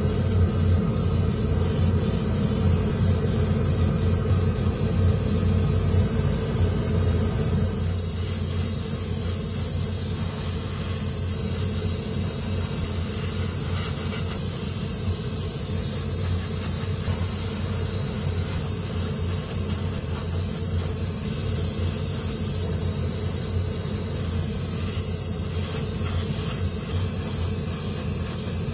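Airbrush hissing steadily as it sprays, over the steady hum of a motor, a little quieter after about eight seconds.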